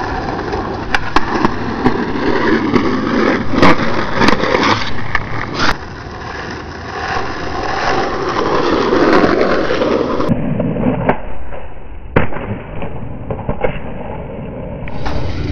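Skateboard wheels rolling over asphalt in a steady rumble, broken by repeated sharp clacks of the board's tail and wheels striking the ground as tricks are popped and landed.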